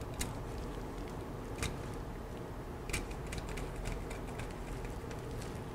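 A wire being landed in a screw terminal on a circuit board: a few faint clicks and small scrapes as the wire goes into the terminal block and the terminal screw is worked, over a low steady background hum.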